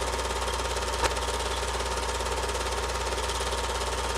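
Film projector running with a steady, fast mechanical clatter and hum, with a single sharp click about a second in.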